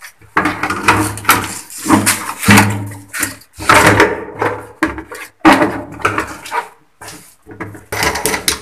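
A toilet cistern being handled and turned over: a run of short rubbing and knocking sounds, about a dozen in all.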